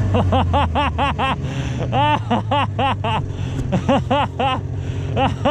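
A person laughing in several runs of quick "ha-ha-ha" pulses, over the low, steady idle of a vintage snowmobile engine.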